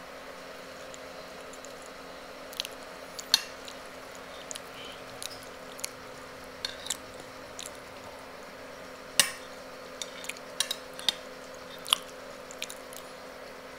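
A metal spoon clinking and scraping against a ceramic plate while mashed potato is scooped up. It comes as irregular sharp clicks, the loudest about three and nine seconds in, over a faint steady hum.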